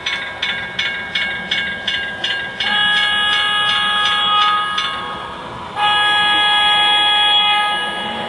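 Train bell ringing about three strikes a second. It stops and a multi-note train horn sounds two long blasts, the second starting just under six seconds in after a short break.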